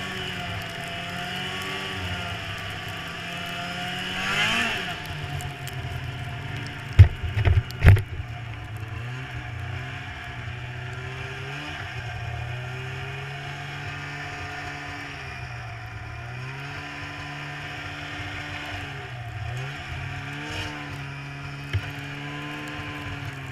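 Snowmobile engine running under way, its pitch rising and falling with the throttle, with a rev-up about four seconds in. Two loud thumps come about seven and eight seconds in, then a steadier drone.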